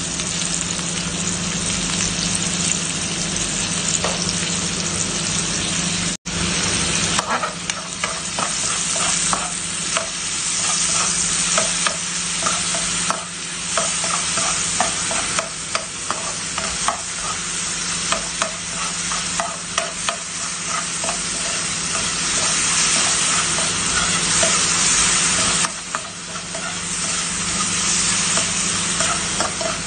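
Sliced onions sizzling steadily as they fry in hot oil in a nonstick frying pan, being sautéed towards caramelized. From about seven seconds in, a spatula scrapes and clicks against the pan again and again as the onions are stirred, over a steady low hum. The sound cuts out for a moment about six seconds in.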